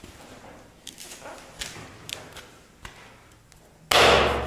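A few light clicks and taps from laminate planks, then one loud thump near the end as a fist strikes down on a 5G click-lock laminate plank to snap its end joint shut.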